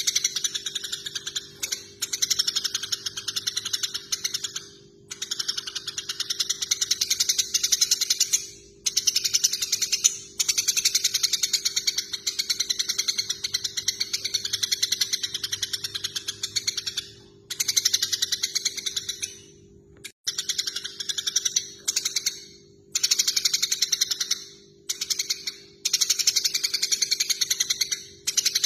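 Eurasian tree sparrows giving rapid, harsh chattering calls typical of sparrows fighting, in runs of a few seconds with short breaks between, over a steady low hum.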